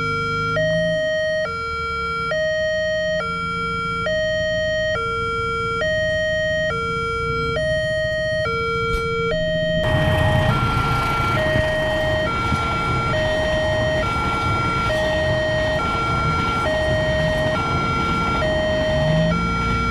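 Railroad level-crossing warning alarm sounding its two alternating electronic tones, each held just under a second, over and over. About ten seconds in, a passenger train rushes past with a steady loud rumble and rush under the alarm.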